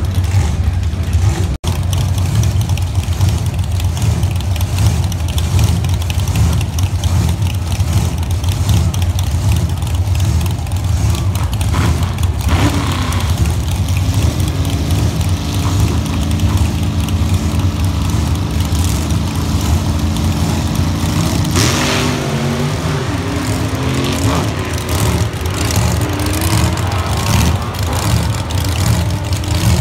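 Drag cars' engines idling close by with a loud, uneven pulsing rumble; an engine is held at a steady higher speed for several seconds in the middle, with brief revs just before and after.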